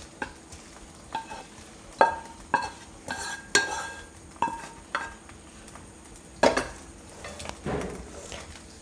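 A metal spoon knocking and scraping against a cooking pan while sautéed vegetable filling is spooned out into a larger pot: about a dozen irregular sharp clinks, several with a short metallic ring.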